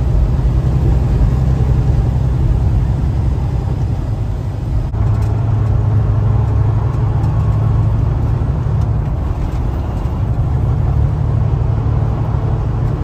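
Semi-truck's diesel engine and road noise heard from inside the cab while driving on the freeway, a steady low drone. There is a brief break about five seconds in, after which the drone is a little stronger.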